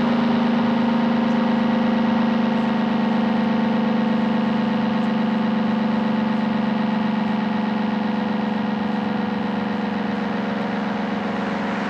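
ACA Screamer S-10 warning siren sounding a low, steady tone that sinks slowly in pitch and fades a little, as the siren winds down.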